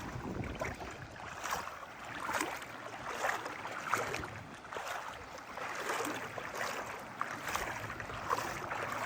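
Creek water splashing and sloshing in irregular bursts.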